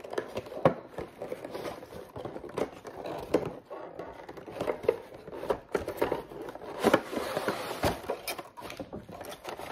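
Cardboard toy box being opened by hand and a clear plastic blister tray slid out of it: irregular crinkling of thin plastic with scattered clicks and taps of cardboard.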